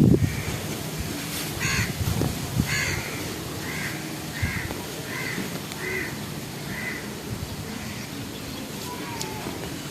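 A crow cawing in a run of short calls, a little over one a second, the first two loudest, trailing off after about seven seconds.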